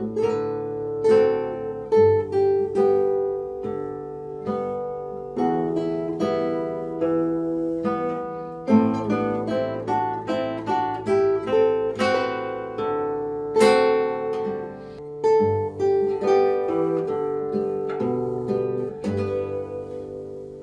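Two nylon-string classical guitars playing a duet, fingerpicked melody notes over bass notes. The last notes ring out and fade near the end.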